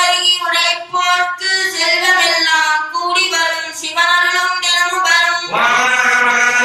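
A high voice singing a devotional chant in short melodic phrases. About five and a half seconds in, a lower voice comes in strongly.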